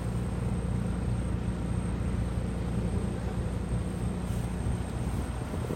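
Case A7000 sugarcane harvester's diesel engine running steadily at a constant speed while the machine stands parked.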